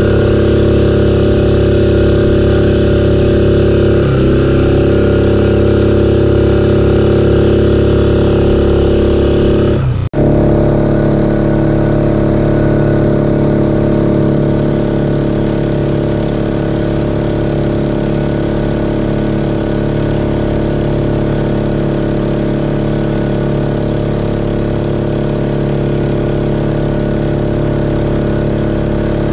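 Mokai jet-propelled kayak's engine running steadily at speed, with the rush of its jet wake. About ten seconds in the sound cuts out for an instant and comes back at a slightly different, somewhat quieter engine pitch.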